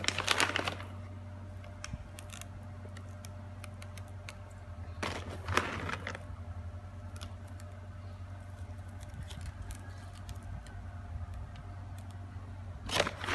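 Rustling and small handling clicks as chocolate chips are sprinkled by hand over cake batter in parchment-lined baking trays. There are two louder rustles, at the start and about five seconds in, over a steady low hum.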